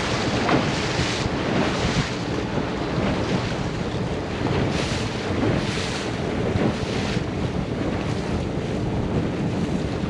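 Wind buffeting the microphone over rushing water, with repeated louder splashes of spray against a hull.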